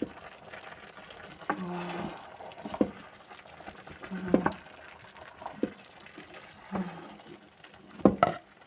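Spoon working through thick food in a cooking pot, a scraping knock against the pot about every second and a bit.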